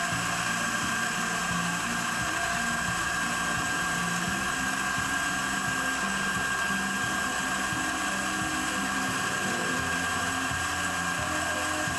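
Breville Dual Boiler espresso machine's vibratory pump running steadily while a shot is pulled, a constant hum with a thin steady high tone over it.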